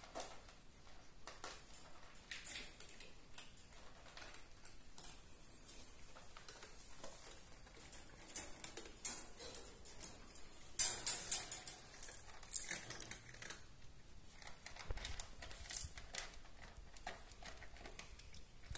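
Cats eating dry kibble in a wire cage: light, irregular clicks and crunches. A burst of louder clicking and rattling comes about eleven seconds in, as the wire cage is handled.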